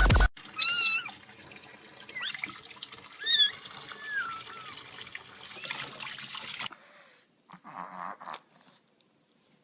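A cat meowing: two loud meows, one about a second in and another around three and a half seconds, with fainter mewing calls between, over a steady faint hiss. The sound cuts off suddenly about seven seconds in, leaving only a few faint short noises.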